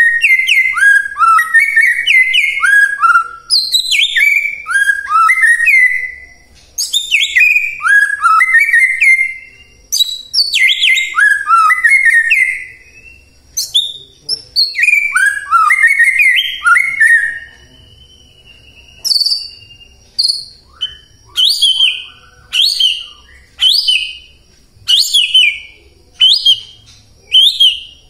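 White-rumped shama singing loudly. For most of the first half it pours out quick phrases of falling whistled notes. In the second half it switches to short, sharp single notes about once a second.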